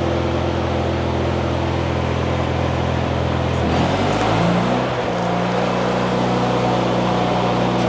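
Stick welding arc crackling over a steadily running engine, the engine picking up speed about four seconds in.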